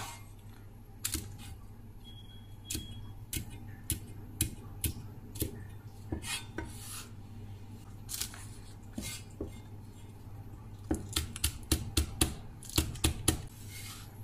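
Chinese cleaver chopping scallion greens on a wooden chopping block. Sharp knocks come at scattered times at first, then a quick regular run of about four chops a second near the end.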